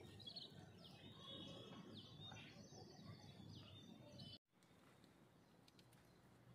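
Near silence with faint, distant bird chirps, short high calls repeated every second or so; the sound drops out almost completely about two-thirds of the way through.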